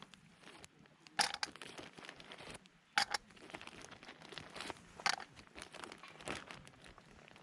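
Irregular crinkling and rustling, like something being crumpled or handled, with a few louder sharp bursts spread through it.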